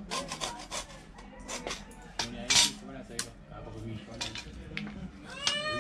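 Irregular clatter and clinks of a hacksaw and cut PVC pipe pieces being handled and set down on a tiled floor, with one louder knock about two and a half seconds in.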